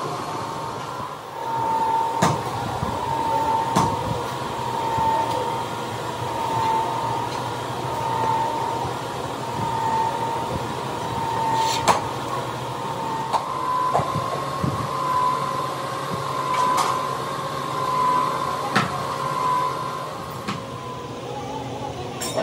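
Steady machine hum with a whistling tone that wavers about every second and a half, broken by a few sharp knocks.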